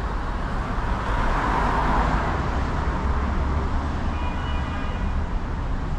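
Street traffic: a car driving past, loudest about two seconds in, over a steady low road rumble.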